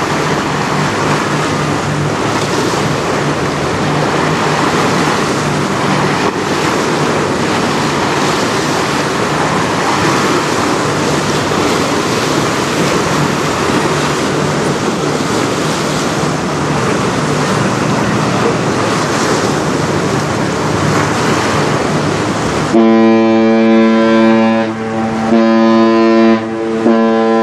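Steady rush of wind and churning water alongside a passing lake freighter, with a faint low hum. Near the end, the bulk carrier Tim S Dool's horn sounds loudly on one steady note, in three long blasts, the last still going at the end.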